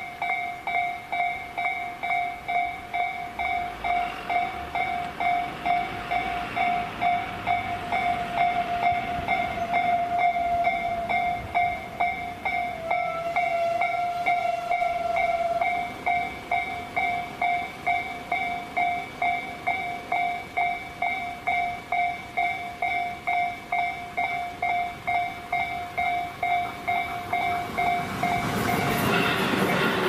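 Japanese level-crossing warning bell ringing in a steady electronic 'kan-kan' at about two strikes a second while the barriers are down. Near the end a Tobu 10000 series electric train reaches the crossing, and the noise of its passing cars drowns out the bell.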